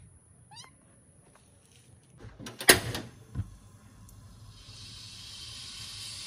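A kitten's short, wavering meow, then two loud clicks as a Rinnai gas stove's knob is turned to light the burner, followed by the gas flame hissing steadily and growing louder.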